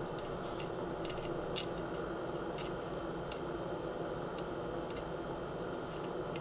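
A few faint, sharp metallic clicks and clinks of a small tool working the front-sight screw on a pistol slide, heard over a steady background hum.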